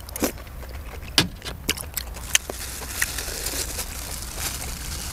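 A person chewing food close to the microphone, with several sharp wet mouth clicks and smacks in the first three seconds, then softer steady chewing noise.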